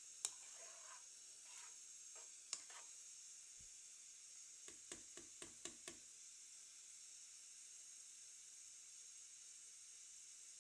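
Spiced gravy for aubergine sizzling faintly in a pan, with a few light clicks and a quick run of clicks about five seconds in.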